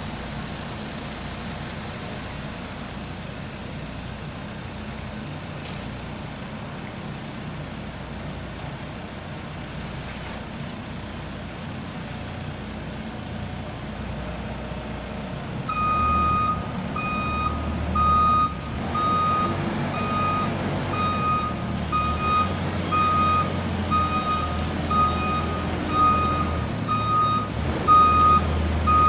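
Bobcat telehandler's diesel engine running, and about halfway through its reversing alarm starts beeping steadily, a little over once a second, as the machine backs up, the engine louder underneath.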